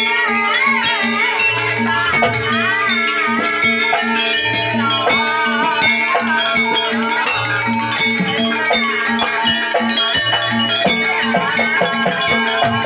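Live jaranan ensemble music: a wavering lead melody over held tones and a steady, repeating percussion beat.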